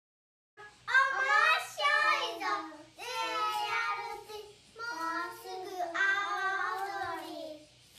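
Small children's voices calling out together in a sing-song chant, four phrases one after another with short breaks between them.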